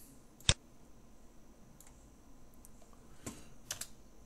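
Sharp clicks from working the computer's controls: one loud click about half a second in, then a few fainter clicks near the end.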